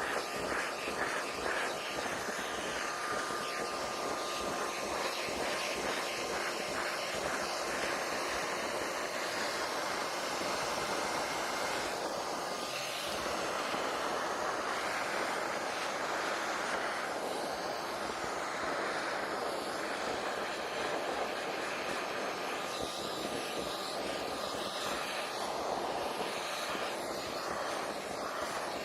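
6-gallon shop vac running steadily while sucking up snow: a constant rush of air through the hose with a thin, steady motor whine over it.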